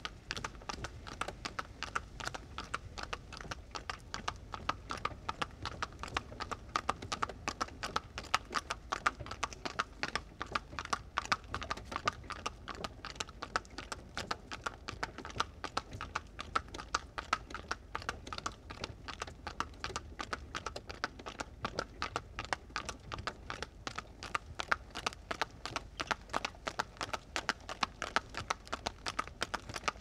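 Horse-drawn cart on the move: a continuous, fast clatter of hoof clip-clops over a steady low rumble.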